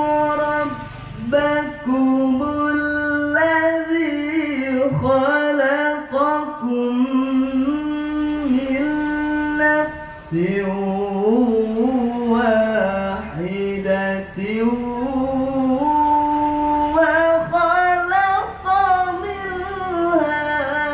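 A man's voice chanting Quran recitation (qiroah) in melodic tajwid style into a handheld microphone: long held notes that waver, slide and turn in ornaments. There are short breaks for breath between phrases.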